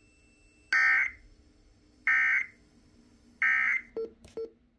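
Emergency Alert System end-of-message data tones: three short two-tone digital squawks, just over a second apart, signalling the end of the alert. Two faint low blips follow near the end.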